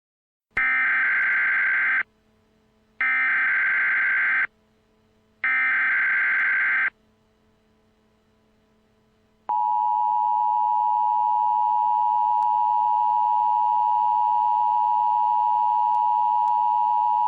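Emergency Alert System broadcast opening. First come three short bursts of buzzing digital header data, each about a second and a half long with a brief gap between them. After a pause, the steady two-tone EAS attention signal starts about nine and a half seconds in and holds. Together they mark the start of a new emergency alert.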